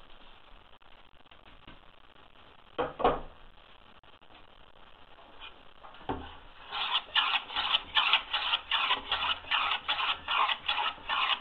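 Hand plane shaving the edge of a wooden board to round it into a bullnose: a quick run of short cutting strokes, about four a second, starting a little past halfway. Before that it is mostly quiet, with two single knocks or scrapes.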